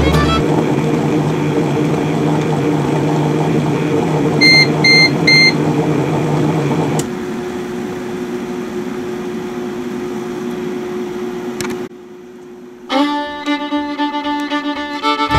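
Ambiano KM2014DGT cooking food processor running at its slow stir setting with soup at about 98 °C, a steady hum. About four and a half seconds in it gives three short beeps as the cooking timer runs out, and a couple of seconds later the stirring stops, leaving a fainter steady hum. Fiddle music comes in near the end.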